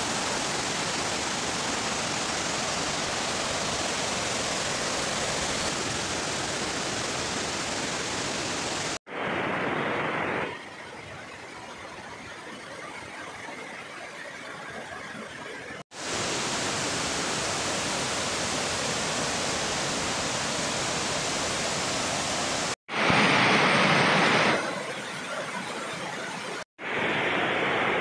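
Rushing water from a waterfall and a fast stream tumbling over rocks, a steady hiss of noise. It drops out abruptly four times and comes back at a different level each time, now louder, now quieter.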